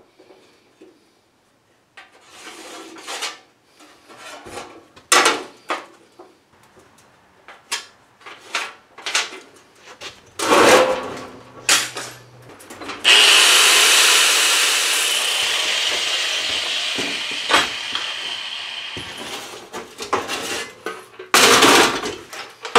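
Sheet-steel firewall panels clanking and knocking as they are handled, then a power cutting tool cutting through the steel firewall, starting suddenly about halfway in and fading out over several seconds. Another short burst of cutting comes near the end.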